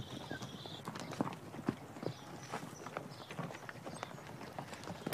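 Horses' hooves clopping, an uneven scatter of short knocks from several animals.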